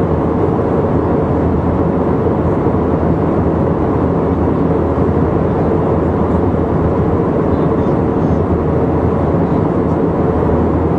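Airliner cabin noise in cruise flight, heard at a window seat: a steady, loud drone of engines and rushing air with a low, even hum under it.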